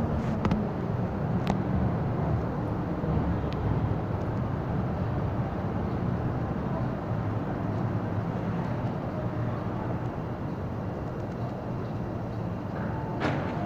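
Steady low rumble and hum of an MTR M-Train standing at an underground platform with its doors open, in the station's echoing hall. A few faint clicks, and a couple of short steady tones near the end.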